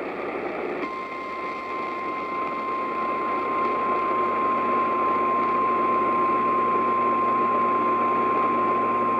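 Weather-radio warning alarm tone, a single steady tone of about 1050 Hz that starts about a second in and holds, over radio static hiss. It is the alert signal that comes right before a National Weather Service warning message.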